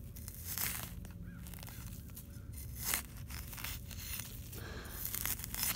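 Dry leaf litter and pine needles crunching and rustling in irregular crackles, with the loudest crunch about three seconds in.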